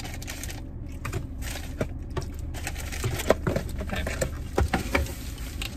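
Takeout food packaging being handled: irregular clicks, taps and rustles of paper bags and containers, over a low steady hum.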